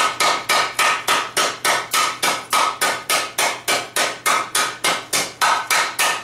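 Rapid, even hammer blows on the rim of a hot steel frying-pan blank resting on a wooden stump, about four a second, each with a slight metallic ring. The blacksmith is upsetting and shrinking the pan's outer edge.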